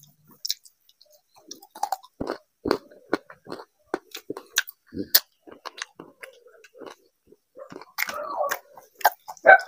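A person chewing a mouthful of rice and fish curry with wet, irregular smacking and clicking mouth sounds, with a denser, louder run of smacks about eight seconds in.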